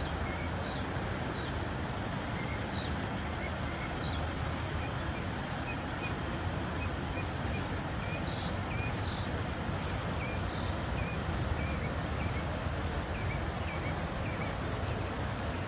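Small birds chirping over and over in short high calls, over a steady rushing background noise.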